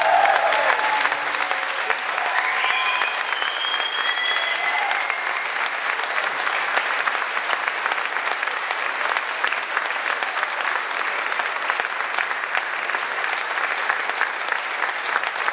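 Audience applauding steadily after a song, with the band's last held notes dying away in the first second or two and a few cheers near the start.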